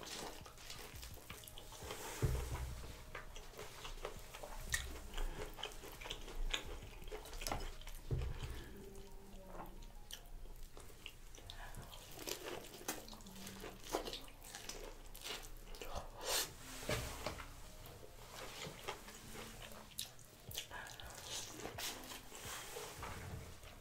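A person biting and chewing corn on the cob, with irregular crunches and mouth clicks.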